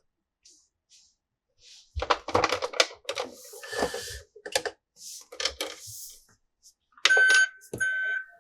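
Hard plastic toy parts clicking and knocking as they are handled, then an electronic toy sound chip beeping in three short bursts near the end.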